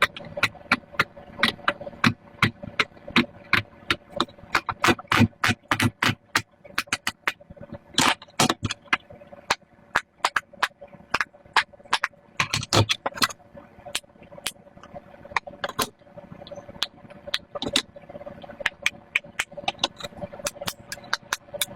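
Silicone pop-it fidget toy being popped bubble by bubble as fast as possible: a long, quick run of sharp little pops, a few each second.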